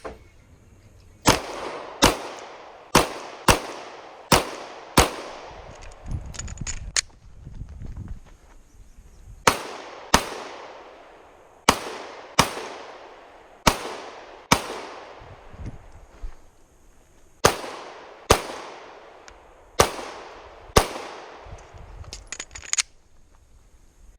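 Rapid pistol fire from a 9mm stock service pistol: about eighteen sharp shots, mostly in quick pairs, in strings separated by pauses of a second or more.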